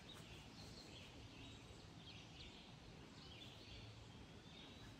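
Near silence: faint outdoor ambience with faint, scattered bird chirps.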